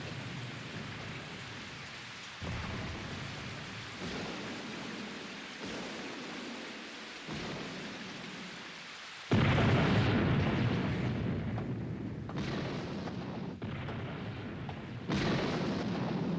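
Thunderstorm: steady heavy rain with repeated thunderclaps every second or two, each fading. The loudest clap comes about nine seconds in.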